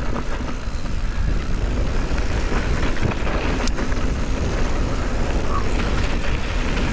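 Wind rushing over the bike-mounted camera microphone as a mountain bike rolls downhill, with tyres running over dry, sandy, loose dirt. One sharp click a little past halfway.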